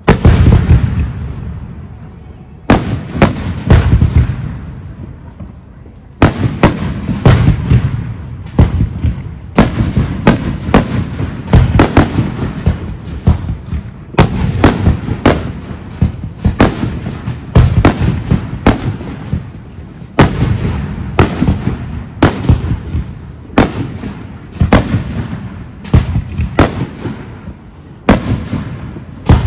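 Professional display fireworks: aerial shells bursting with loud bangs and rumbling echoes. A few separate bangs at first, then from about six seconds in a steady barrage of several bursts a second.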